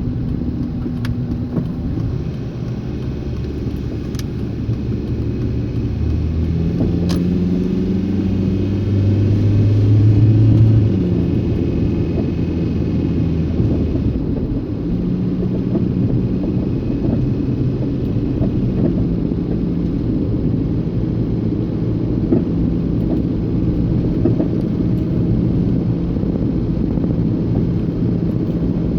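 Suzuki APV van driving: engine running over road rumble, the engine note rising and growing louder about six to eleven seconds in, then holding steady. A few sharp knocks stand out in the first several seconds, the clunking noise the van makes when driven.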